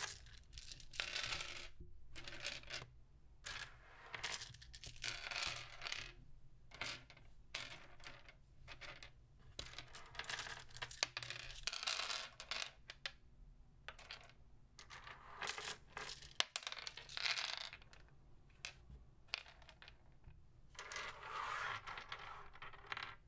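Plastic polyhedral dice clicking and rattling against each other and the wooden desk as they are scooped up, pushed around and set down in piles by hand, in irregular clusters of clicks with short pauses between.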